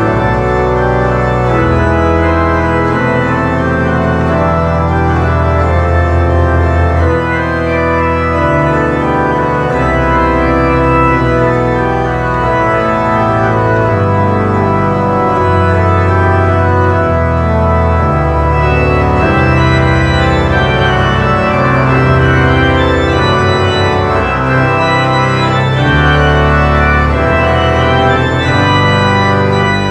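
Organ music: a slow piece of long, sustained chords over held bass notes.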